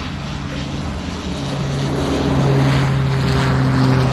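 Airplane engine droning at a steady pitch over a rushing noise, growing louder from about a second and a half in.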